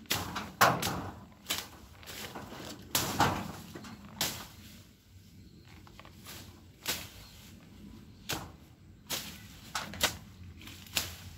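A hand blade hacking through thick grass and weeds: irregular sharp swishing chops, roughly one a second, some in quick pairs.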